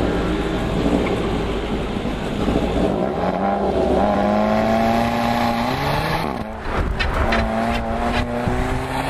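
2013 Audi TT engine accelerating hard at an autocross run, heard inside the cabin: its pitch climbs steadily for a few seconds, drops away briefly about six seconds in with a few sharp clicks, then climbs again.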